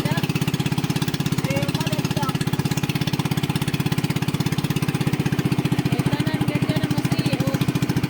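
Motorboat engine running steadily with a fast, even chugging pulse.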